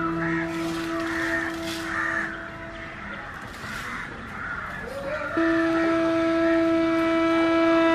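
Crows cawing repeatedly over a loud, steady, droning pitched tone with many overtones. The tone drops out about three seconds in and comes back with an upward slide about five seconds in.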